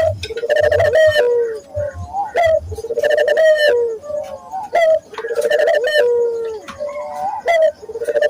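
Local puter doves (ringed turtle doves) cooing loudly: a rolling coo phrase repeated about every two and a half seconds, four times, with short sharp rising notes between the phrases.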